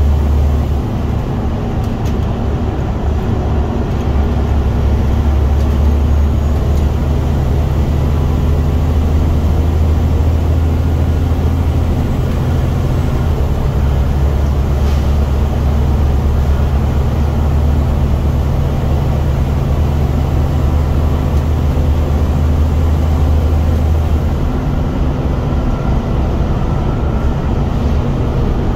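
Scania single-deck bus's diesel engine pulling under load as the bus drives, heard inside the saloon as a loud, steady low drone over road noise, easing back a little near the end.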